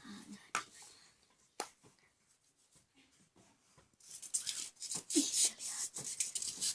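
Hands handling homemade slime made from styrofoam dissolved in eucalyptus oil, making sticky clicking and crackling: a few separate clicks, then a dense run of crackling from about four seconds in.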